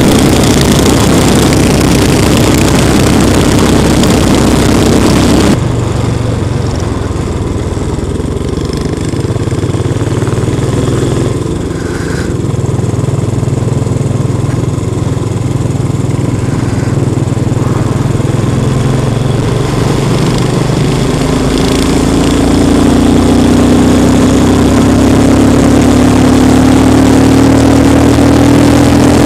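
Royal Enfield Continental GT's single-cylinder engine running under way, under a loud rush of wind for the first five seconds or so. The wind suddenly drops away, leaving the engine note. From about two-thirds of the way through, the engine note rises steadily as the bike accelerates.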